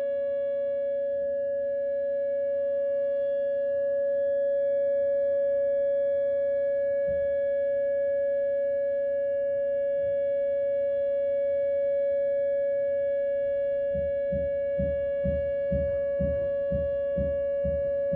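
Whelen WPS 2909 electronic outdoor warning siren sounding a steady alert tone at one unchanging pitch. Near the end it is joined by about ten low thuds, roughly two a second, from hammering in the house.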